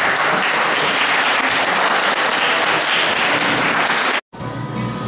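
Audience applause: steady clapping that cuts off abruptly about four seconds in, followed by faint music.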